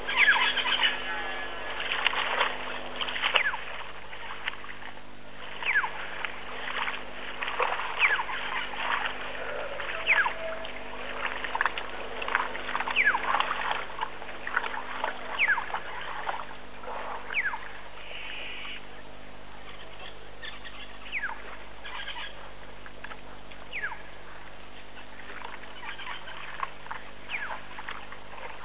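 Birds calling: many short, quick downward chirps, busiest through the first two-thirds and thinning out near the end.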